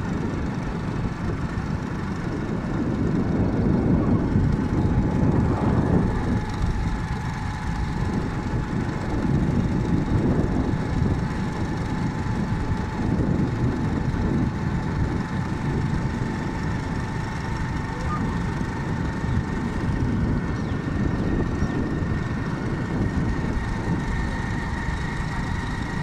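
A vehicle running along a road, heard from on board: a steady low rumble of engine and road noise with a faint steady whine over it.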